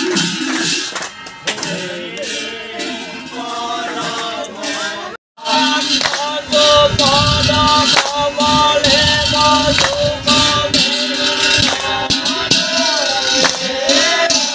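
Devotional group chanting (Assamese naam) with jingling hand percussion keeping time. The sound cuts out for a moment about five seconds in, then the chant comes back louder.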